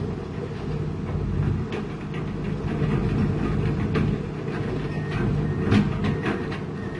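Diesel engine of a heavy construction machine running steadily, with scattered metallic clanks and knocks, the loudest near the end.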